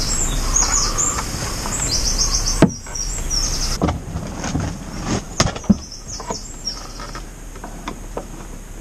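Wooden cockpit locker lid being set into its frame and handled, with one sharp knock a few seconds in and scattered lighter clicks and knocks after. Small birds chirp repeatedly, mostly in the first few seconds and again midway.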